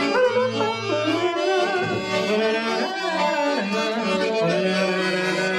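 Accordion playing a melody over held bass notes and chords.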